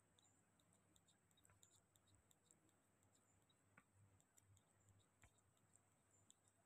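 Near silence with faint, scattered soft clicks from a baby macaque sucking on a milk bottle's nipple.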